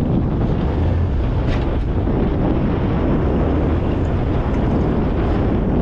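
Wind buffeting the microphone in a steady rumble, over the tiller outboard motor of a G3 Sportsman 1810 aluminum boat running at low speed.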